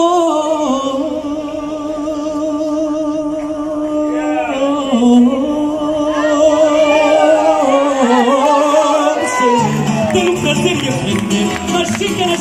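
Background music: a singing voice holds long notes with vibrato. A bass line and rhythmic accompaniment come in near the end.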